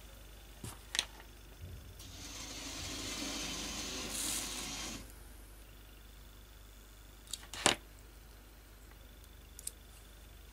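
Small plastic clicks and taps from an N gauge locomotive chassis being handled and fitted together, with, about two seconds in, roughly three seconds of a small electric motor whirring on test leads that stops abruptly.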